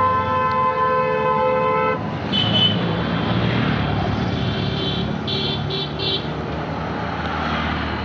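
A vehicle horn blares steadily for about two seconds. Motorcycles and road traffic then run past close by, with a few short, higher beeps in between.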